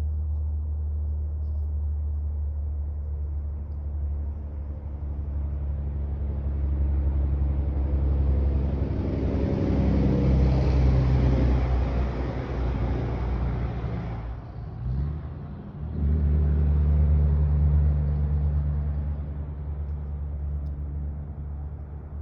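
A car running on the road: a steady engine hum with road noise that builds over the first ten seconds or so, drops away briefly about fourteen seconds in, then picks up again and holds steady.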